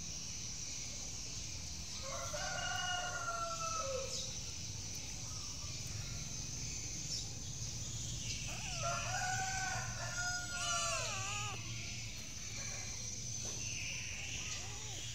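A rooster crowing twice, each crow a long drawn-out call of two to three seconds; the second crow breaks into a wavering tail at its end.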